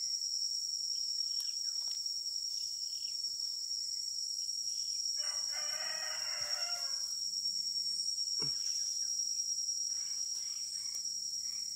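A rooster crows once, about five seconds in, for nearly two seconds, over a steady high-pitched insect drone. A few faint clicks come from the greens being pulled.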